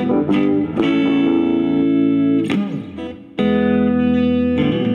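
Guitar played through a portable PA speaker, chords strummed and left to ring, struck about four times, with a brief drop in level about three seconds in.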